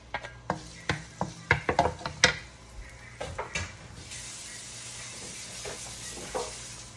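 Two wooden spatulas knock and scrape against a non-stick wok as minced garlic is stirred in hot oil, with a quick run of knocks over the first three seconds or so. From about four seconds in, the steady high hiss of the oil sizzling takes over.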